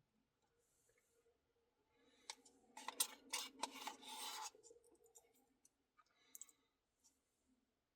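Faint clicking and scraping, bunched together from about two to five seconds in, with a few small clicks later, against near silence.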